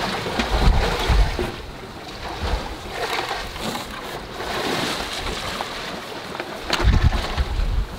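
Wind gusting on the microphone over the steady wash of the sea, with a few light knocks as the autopilot's drive wheel and motor are pulled out and handled.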